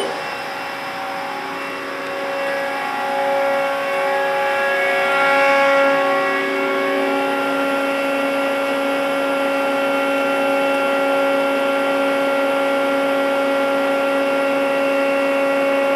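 Haas SL20 CNC lathe running, a steady machine whine of several tones that shifts in pitch in the first few seconds and then holds steady.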